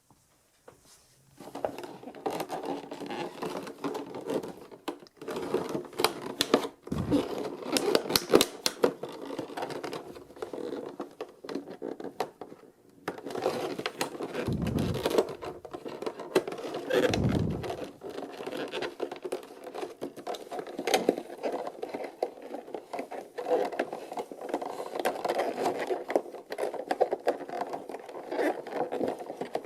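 Figure packaging being handled and unwrapped: rustling and crinkling of plastic and cardboard with scattered clicks and knocks, starting about a second and a half in. A cluster of sharp clicks comes about seven to eight seconds in, and two dull bumps around fifteen and seventeen seconds in.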